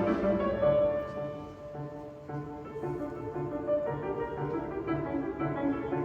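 Piano trio (piano, violin and cello) playing a slow classical piece. The music softens about a second and a half in, then a low note starts pulsing about three times a second under sustained notes.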